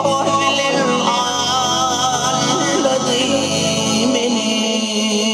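Live band playing a Turkmen folk song on synthesizer keyboards, electric guitar and drums, with a man singing over it.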